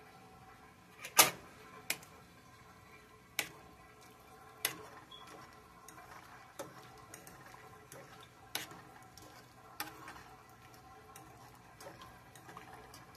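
A metal fork clinking against a nonstick saucepan while stirring simmering green beans and sausages: a dozen or so sharp, irregular taps, the loudest about a second in.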